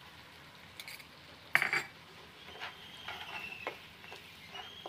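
A cooking spoon stirring chopped onions and garlic paste frying in oil in a pan: one sharp clink of the spoon against the pan about a second and a half in, then several scraping strokes across the pan, with a faint sizzle underneath.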